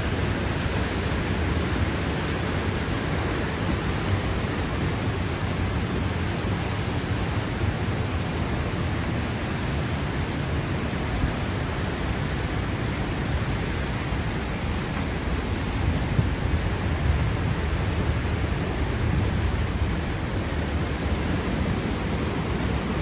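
Steady hurricane wind blowing without a break, the gusts buffeting the phone's microphone with a low rumble.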